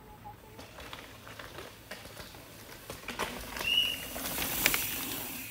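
Downhill mountain bike passing on a rough, rocky trail: tyres crunching and the bike rattling over rocks, with irregular knocks. It swells to a peak about four to five seconds in and then fades. A short high whistle sounds just before the peak.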